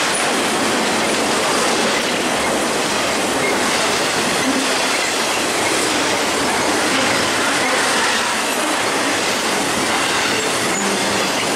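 BNSF intermodal freight train cars loaded with truck trailers rolling past: a steady, loud noise of steel wheels on the rails.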